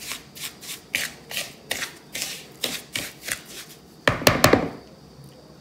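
Wooden spoon stirring a gritty sugar, cocoa and olive oil scrub in a bowl: a run of short rasping scrapes, about two a second, with a louder stroke about four seconds in, after which the stirring stops.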